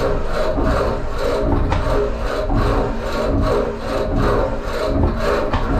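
CNC engraving tool scratching a marking into aluminium sheet: a continuous scraping that swells about twice a second, over the steady hum of the machine.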